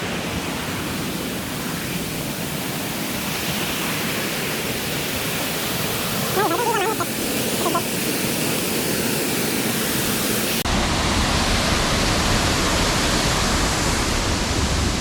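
Waterfall rushing, a steady, loud wash of water noise that gets louder and deeper about ten seconds in. A short pitched call sounds briefly near the middle.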